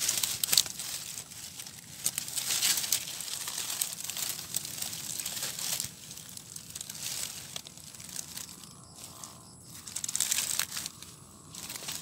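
Dry grass stalks and dead leaves rustling and crackling in uneven bursts as a hand pushes them aside, busiest in the first half and again near the end.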